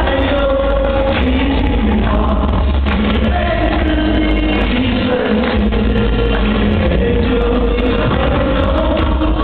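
A group of people singing together along with loud amplified music that has a strong bass, the sung notes held steadily with no pause.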